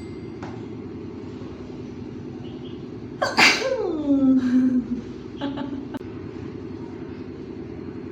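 A girl's single sneeze about three seconds in: a sharp burst, then a voiced 'choo' that falls in pitch over about a second and a half. A steady low hum runs underneath.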